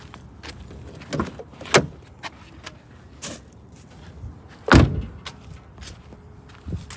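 A scattered series of knocks and clicks, with the loudest thump about five seconds in.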